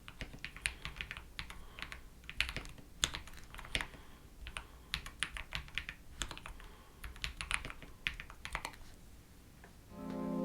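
Typing on a Zuoya GMK67 mechanical keyboard fitted with Akko Cream Yellow linear switches: quick runs of clacking keystrokes with short pauses between them. Near the end the typing stops and music comes in.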